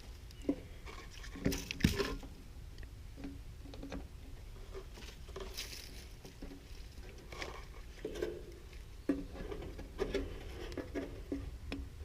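Scattered light clicks and taps of wire terminals and meter leads being handled at a 70+5 dual run capacitor while it is being tested, with a couple of sharper knocks about 2 seconds in.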